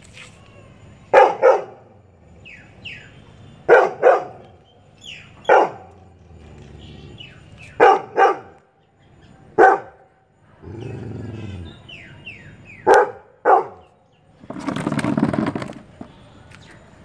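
Yellow Labrador retriever barking loudly at chirping birds: about ten deep barks, often two in quick succession, every couple of seconds, with small birds chirping faintly in the gaps. Two short stretches of noise come in the second half.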